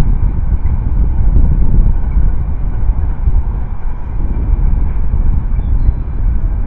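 Wind buffeting an outdoor nest-camera microphone: a loud, uneven low rumble that gusts up and down.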